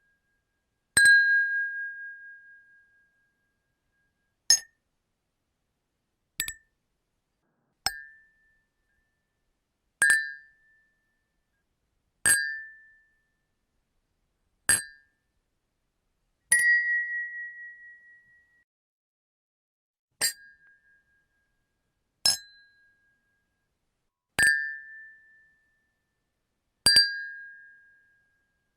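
Glasses clinking together in a toast, one clink at a time, about a dozen in all at roughly two-second intervals, each a sharp strike with a short high ring that fades.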